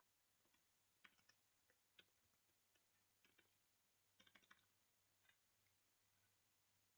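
Very faint computer keyboard typing: scattered single keystrokes, with a quick run of several keys about four seconds in.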